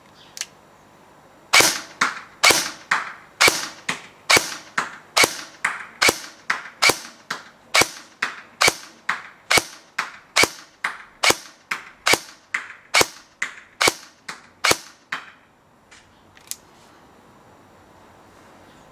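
ASG CZ Scorpion EVO 3 A1 airsoft electric gun firing single shots, about thirty sharp cracks a little over two a second, stopping about fifteen seconds in. A lone click comes just before the string, and two lighter clicks after it.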